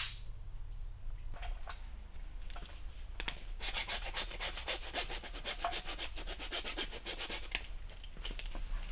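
Screwdriver scraping against a hard plastic trim panel. A few scattered scratches come first, then a quick run of scratchy strokes, about eight a second, for several seconds.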